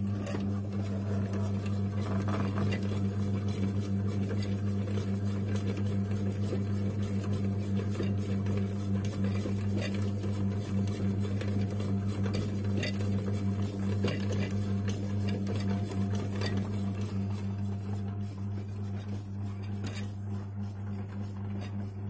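LG HB-152CE bread maker kneading dough: the kneading motor hums steadily while the dough ball and pan give irregular soft knocks and clicks, which thin out near the end.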